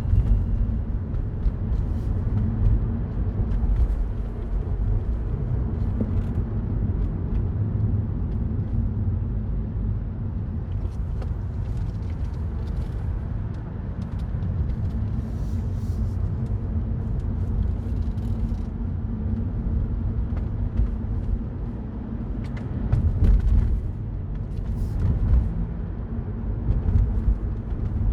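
Mini Cooper Cabrio being driven at a steady pace: a continuous low engine and road rumble with occasional small knocks, swelling slightly twice near the end.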